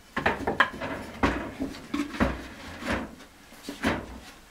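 Wooden beehive body being set down onto the hive's bottom board and shifted into place: a string of knocks and scrapes of wood on wood.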